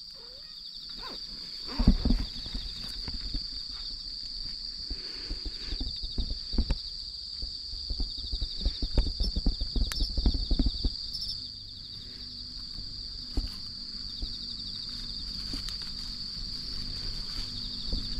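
Insects chirring steadily at one high pitch, over irregular soft thumps and rustles of cats moving among twigs, roots and dry leaves.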